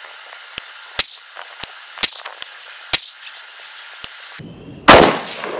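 A single AR-15 rifle shot about five seconds in, the loudest sound, followed by a long fading echo, fired while zeroing the scope. Before it comes a string of lighter, sharp cracks, several a second.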